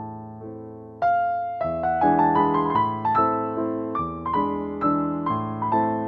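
Background piano music: soft notes ring and fade, then about a second in a louder, fuller phrase begins, with new notes struck roughly every half second.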